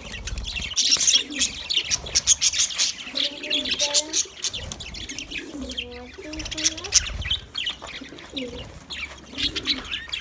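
A flock of budgerigars chirping and chattering at once, with many short high calls overlapping throughout.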